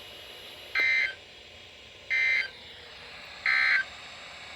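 Emergency Alert System end-of-message data bursts on NOAA Weather Radio: three short bursts of warbling two-tone digital data, each about a third of a second and a bit over a second apart, over a steady receiver hiss. They signal the end of the warning message.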